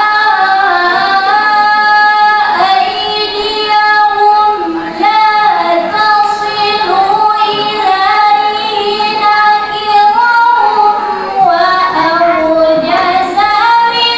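A woman reciting the Quran in the melodic tilawah style, in long held notes that slide and ornament, with brief pauses for breath between phrases.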